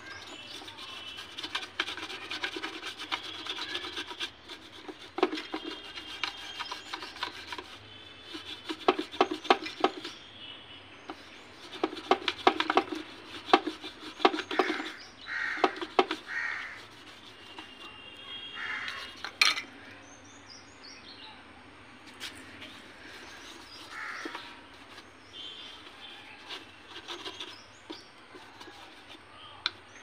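Stiff brush scrubbing a mixer grinder's plastic body with scouring powder: rasping strokes in bursts, busiest around the middle. Birds call now and then in the background.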